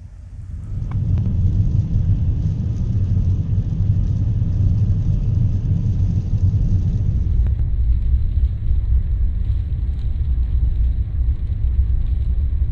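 Steady low rumble that swells in about half a second in and holds.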